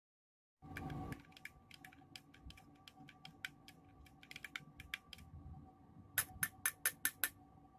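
Metal spoon stirring a drink in a glass tumbler, clinking against the glass in quick irregular taps. Near the end come six louder, ringing clinks in quick succession.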